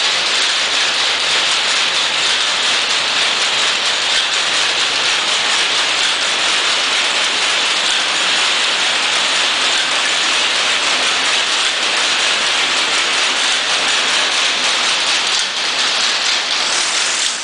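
Rapier looms with jacquard heads running in a weaving shed: a loud, steady, dense clatter of many rapid mechanical strokes blending together.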